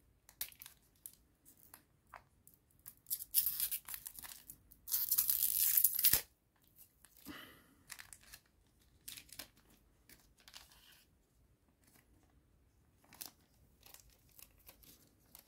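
Foil booster pack wrapper of a trading card game crinkling in the hands, then torn open in one long rip of about a second, about five seconds in. Afterwards, soft clicks and rustles of the cards being handled and flipped through.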